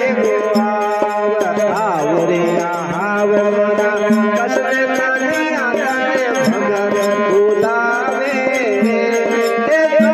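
Devotional bhajan music: a gliding melody over a steady drone with a hand-drum beat.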